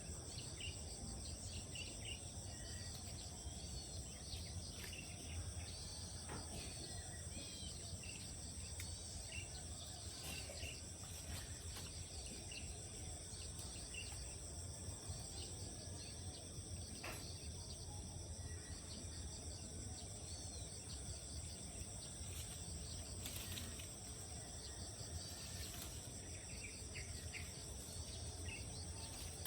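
Steady chorus of insects shrilling at a high pitch, with short bird chirps scattered through it over a low, even background rumble.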